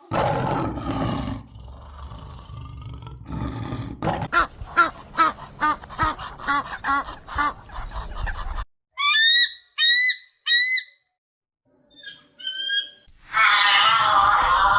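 A series of different animal calls cut one after another: a fast run of repeated short calls, then three short rising chirps about nine seconds in, then a loud, rough call near the end.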